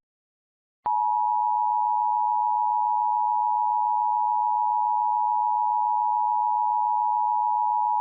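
Emergency Alert System attention signal: a steady, unwavering electronic tone that starts abruptly about a second in and holds without a break, signalling that a Child Abduction Emergency alert is about to be read.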